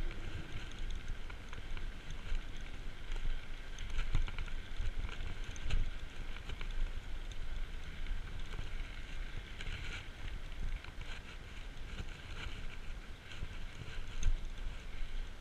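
A mountain bike rolling fast on a paved path: a steady rumble of tyres and wind on the camera microphone, with scattered rattles and knocks from the bike over bumps.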